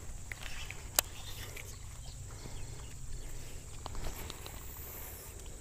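Quiet outdoor ambience: a steady high trill of insects over a low wind rumble, with a single sharp click about a second in and a few faint ticks later.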